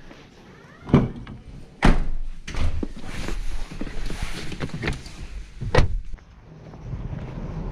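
Doors shutting with three loud thuds, about one second in, two seconds in and near the end, with smaller knocks and handling noise between them.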